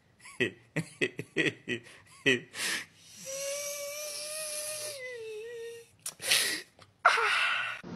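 A man sobbing: short gasping breaths, then a long wavering whimper that dips in pitch near its end, followed by two noisy breaths.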